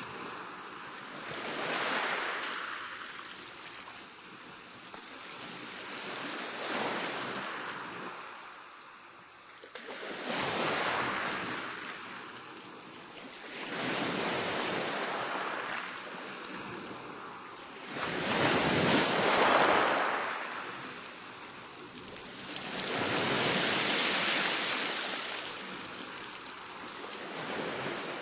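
Waves of a rough sea breaking one after another, each a swelling rush of hiss that ebbs away, about every four to five seconds; the heaviest wave breaks about two-thirds of the way through.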